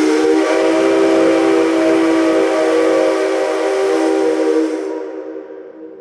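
Whistle of the C57 135 steam locomotive: one long, loud, steady blast of several tones at once, which dies away about five seconds in. It is the signal for the turntable to begin turning.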